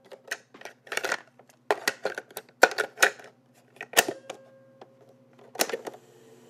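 Opening of an electro-pop track: about a dozen sharp, irregular clicks and snaps, like a mechanical device being handled, over a faint steady low hum. The full music has not yet come in.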